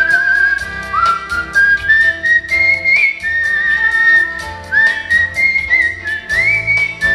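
A person whistling a melody into a microphone in long held notes with vibrato, several notes sliding up into pitch, over an instrumental backing track with a steady beat.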